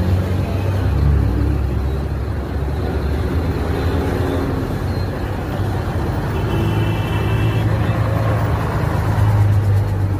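Police motorcycle engine running close by, a steady low rumble.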